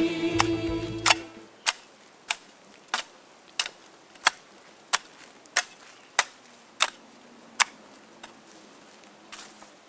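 Theme music fades out in the first second or two, then a hoe chops into the soil with sharp strikes in a steady rhythm, about three every two seconds.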